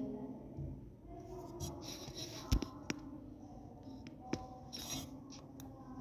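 Faint handling noise: low rustling with a few soft, sharp clicks and taps spread through it.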